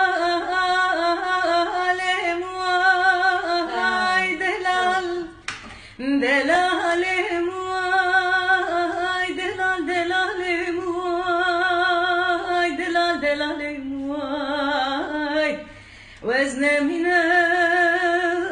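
A woman singing a Kurdish mewal unaccompanied, a free-rhythm vocal improvisation of long held notes with vibrato and ornamented glides. She pauses briefly for breath about five seconds in and again near sixteen seconds.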